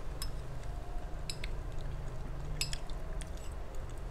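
Metal spoon clinking against a drinking glass while scooping syrupy kolang-kaling (sugar palm fruit): several short sharp clinks spread through, over a low steady hum.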